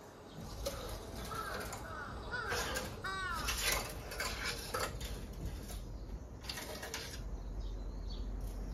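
A crow cawing, two short calls about one and three seconds in, with scratchy brushing as a twig broom is swept along the eaves.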